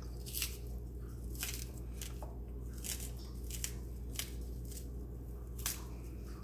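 Thick peel of a green banana being pried and torn off by hand, a series of short crisp snaps and crunches spaced irregularly, over a steady low hum.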